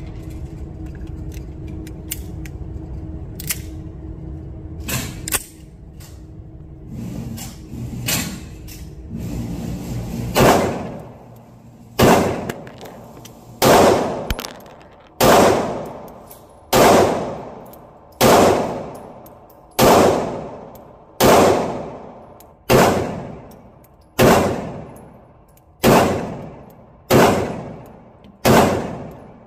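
A 9mm Girsan pistol fires about a dozen single shots at a slow, even pace, roughly one every second and a half, starting about a third of the way in. Each shot rings off in the echo of the indoor range. Before the shooting starts there is a steady hum with a few fainter, scattered shots.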